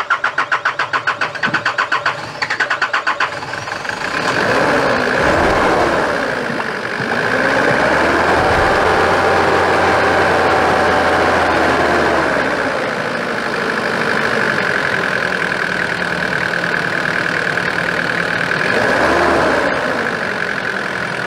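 1993 Nissan Terrano's diesel engine cranking on the starter with a rapid even beat, catching about three seconds in, then revved up and down and running, with another brief rev near the end. It is running on diesel fed straight from the tank to the injection pump, bypassing the feed pump and filter, which shows the injection pump itself is not the cause of the hard starting.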